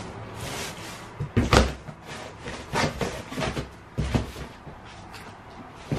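Cardboard box flaps being folded down and pressed flat by hand: a papery rustle with several dull thumps, the loudest about one and a half seconds in.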